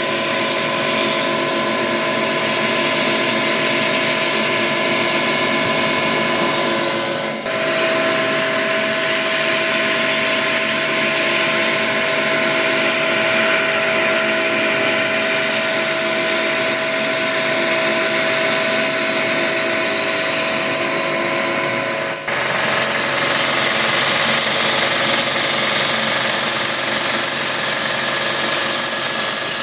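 Haas TM-1 CNC mill machining Delrin plastic with an end mill: a steady spindle whine with several fixed tones over a hiss of cutting. The sound changes abruptly twice, about seven and twenty-two seconds in, as it moves to another cut.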